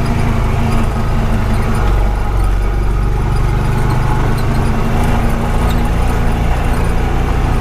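Honda Pioneer 520 side-by-side's single-cylinder engine running steadily under way, a continuous low drone with faint scattered ticks over it.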